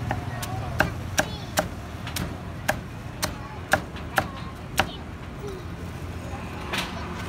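Cleaver chopping roast meat on a chopping board: a run of about nine sharp strikes, about two a second, then a pause and one more strike near the end, over a low street rumble.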